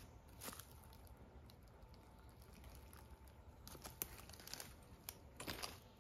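Faint crunching and rustling of a cat stepping over broken tile shards and pushing into a pile of cut leafy branches: a few light clicks, with the loudest rustle of leaves and twigs about two-thirds of the way in.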